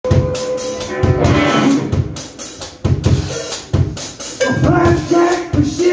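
Live guitar-and-drums duo playing a hard blues-rock number: a drum kit keeping a steady beat with heavy bass drum and snare hits, under amplified guitar notes that slide up and down in pitch.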